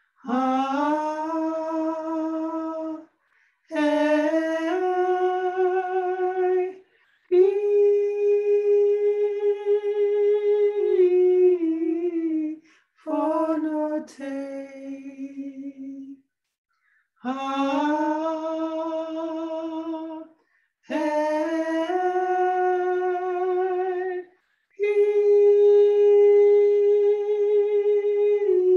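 A woman singing a slow, unaccompanied song on long held vowels. It comes in phrases of about two to five seconds with short pauses for breath between, and the notes often step up in pitch within a phrase.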